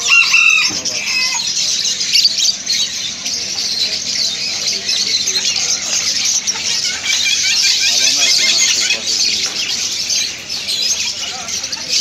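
A crowd of small parrots (budgerigars, cockatiels and ring-necked parakeets) chirping and chattering together without pause, with one louder call right at the start.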